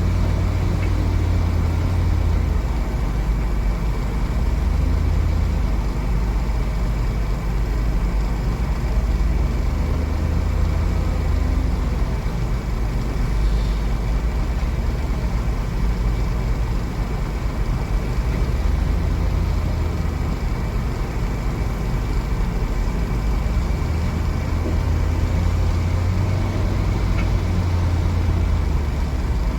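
JCB 3DX backhoe loader's diesel engine running steadily, a low rumble that swells and eases every few seconds.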